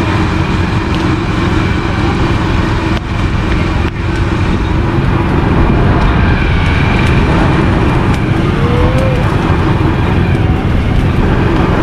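Steady roadside traffic noise: a constant low rumble of passing vehicles.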